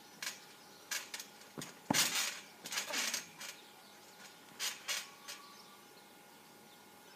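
Trampoline bouncing: a series of thumps on the mat with the metal springs creaking and clinking as a person jumps, flips and lands. The loudest come about two to three seconds in, then a few lighter ones around five seconds.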